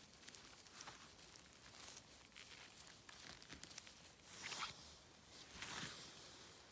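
Faint rustling and tearing of moss and forest litter as a gloved hand pulls up a cluster of winter chanterelles, with scattered soft clicks and two louder swishes of brushing through the undergrowth in the second half.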